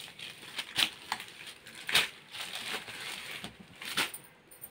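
Rustling of a chiffon saree being gathered up and slid off a tabletop, with a few sharp taps of handling along the way.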